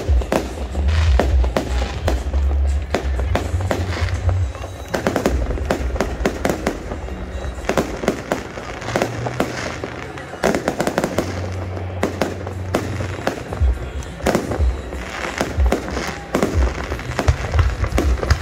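Fireworks display: a continuous run of bangs and crackling pops from bursting shells, growing denser in the last few seconds.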